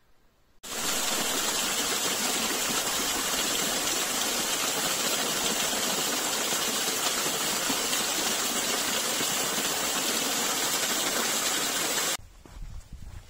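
Steady rushing of stream water, close and loud. It starts suddenly about half a second in and cuts off suddenly near the end.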